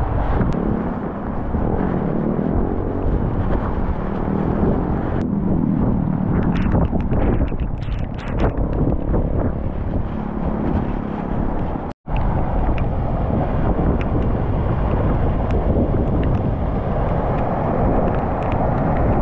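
Strong wind buffeting the microphone, a loud low rumble that rises and falls in gusts. It has a spell of faint crackling about six to nine seconds in, and the sound cuts out for an instant about twelve seconds in.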